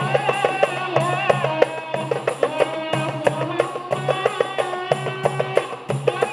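Marawis ensemble playing: girls' voices sing a wavering melody over small marawis hand drums and a large hajir barrel drum struck in a quick, steady rhythm.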